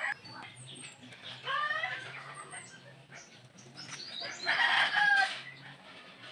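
A rooster crowing twice, the second crow louder, over faint low bass from the sound system.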